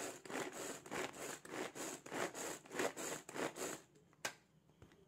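Pigeon pull-cord handy chopper worked in quick repeated pulls, about three a second: the cord rasps out and rewinds while the blades spin through chopped onion, ginger, garlic and green chillies in the plastic bowl. The pulls stop just before four seconds in, and a single click follows.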